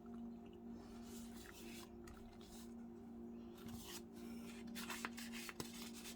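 Faint rustling and rubbing of paper being handled and pressed down, in several short stretches with a few light ticks near the end, over a steady low hum.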